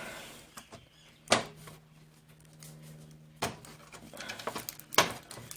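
Sharp clicks and knocks from handling the parts of an opened LCD TV: three louder knocks a second or two apart among lighter clicks, over a faint steady hum.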